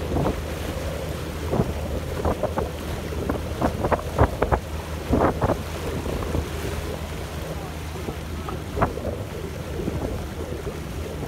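Wind buffeting the microphone over water rushing along a boat's hull, with short splashes and slaps of waves, most of them bunched together about four to five seconds in. A steady low hum runs underneath.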